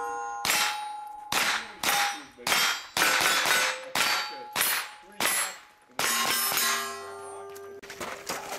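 Pistol-caliber carbine firing at steel targets: about nine shots in quick succession, mostly half a second apart, each followed by the ring of a struck steel plate; the last comes about six seconds in. A rapid rustling follows near the end.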